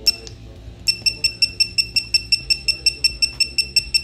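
Digital torque wrench beeping as its set button is pressed: one beep, then from about a second in a rapid string of short high-pitched beeps, about five a second, as the button is held and the target value scrolls upward.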